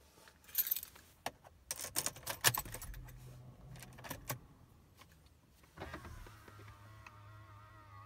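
Car keys jangling and clicking as the ignition key of a BMW E39 is put in and turned, a cluster of sharp jingles and clicks over the first few seconds. About six seconds in, a steady low electrical hum with a faint wavering whine sets in as the ignition switches on, engine not running.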